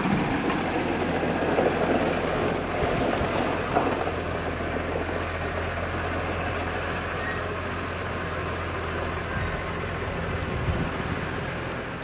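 New Holland tractor's diesel engine running with a steady low drone, louder and rougher for the first few seconds as it pulls in, then settling to an even run.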